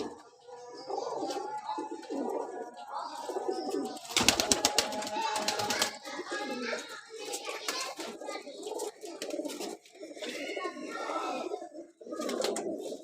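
Domestic pigeons cooing in a loft, with a louder burst of clattering noise from about four to six seconds in.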